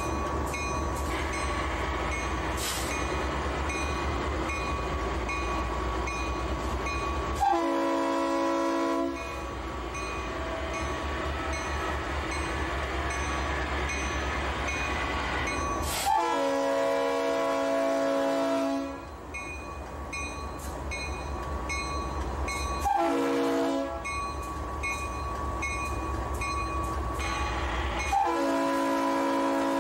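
EMD SD90MAC-H diesel locomotives pulling out at full throttle (run 8), their engines a deep steady rumble. Over it the Leslie air horn sounds four chord blasts, long, long, short, long, which is the grade-crossing signal, and the last one is still sounding at the end.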